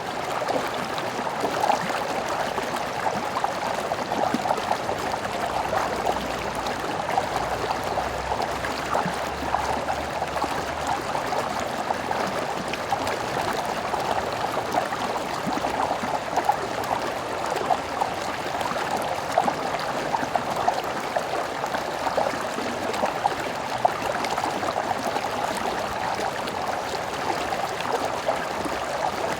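A stream running over rocks: steady splashing and gurgling water.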